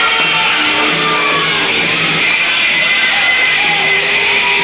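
Recorded rock song with singing and guitar, played over a PA system.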